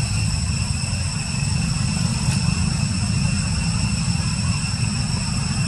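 Wind buffeting the microphone: a steady, ragged low rumble. Above it runs a constant high-pitched whine.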